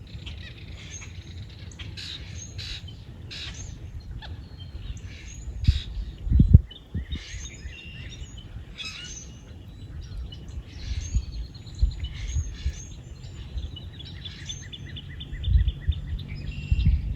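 Songbirds chirping and calling, with a fast run of evenly repeated notes near the end. A few loud low thumps sound under the birdsong, the loudest about six seconds in.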